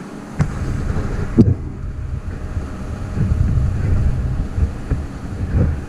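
Track-hoe pushing a fence post into the ground with its bucket: a low, uneven rumble of the machine working under load starts about half a second in, with a sharp knock about a second and a half in.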